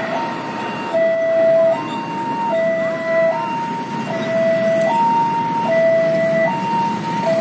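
Railway level-crossing warning alarm sounding a two-tone electronic hi-lo signal, a lower and a higher tone taking turns about every 0.8 seconds, over a low traffic hum. It warns that a train is approaching.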